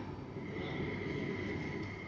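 Cabin running noise of a Bombardier C810 rubber-tyred LRT car moving along its concrete guideway: a steady low rumble with a steady high-pitched whine.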